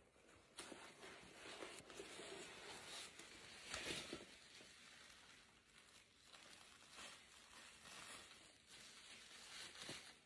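Faint rustling and handling of packaging as a box is unpacked, with a slightly louder rustle about four seconds in.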